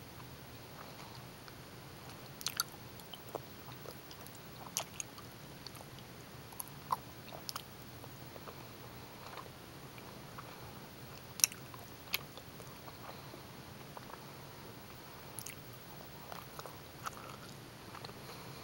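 Close-miked chewing of gummy bears: scattered sharp mouth clicks and smacks every second or so, the sharpest about halfway through, over a steady faint hiss.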